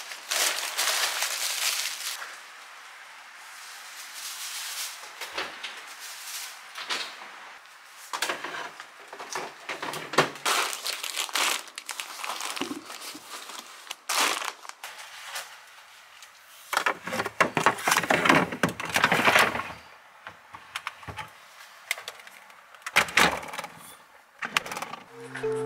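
Irregular rustling and crinkling of a cloth bag and plastic-wrapped food packets being handled and set down.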